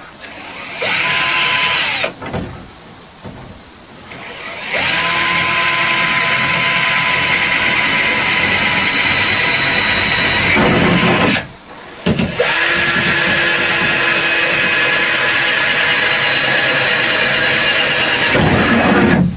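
Handheld electric power tool run in three bursts, its motor spinning up to a steady high whine each time. The first burst is short, and the last two last about five to seven seconds each.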